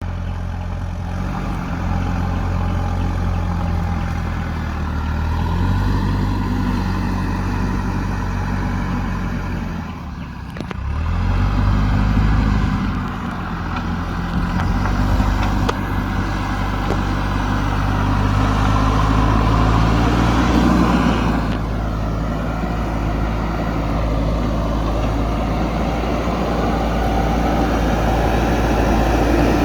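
JCB backhoe loader's diesel engine running under load, its revs rising and falling as the machine works. The sound dips briefly about ten seconds in, then the engine picks up again.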